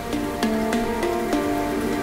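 Background music: a melody of held notes stepping from one note to the next, with light percussive taps.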